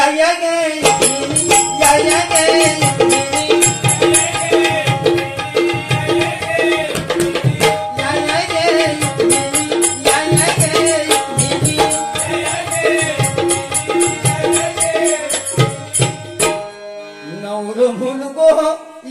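Bhajan accompaniment: a harmonium plays a repeating melody over steady held notes, with a hand drum beating fast strokes. The music breaks off near the end, and rising tones follow.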